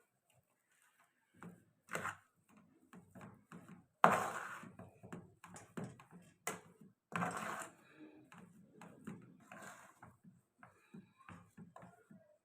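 Kitchen handling noises: scattered knocks, clatter and rustling, with one sharp knock about four seconds in that is the loudest.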